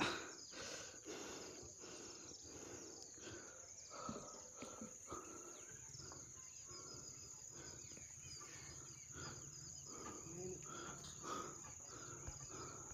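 Faint rural ambience: a steady high-pitched insect drone, with short chirps scattered through it.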